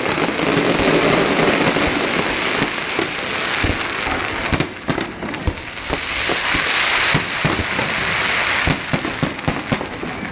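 Aerial fireworks display: a dense, continuous crackle of bursting shells, with many sharp pops and bangs through it and a thick surge of crackling about two-thirds of the way in.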